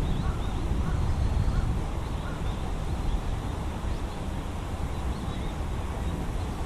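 Steady low outdoor rumble, with faint short bird calls scattered through it.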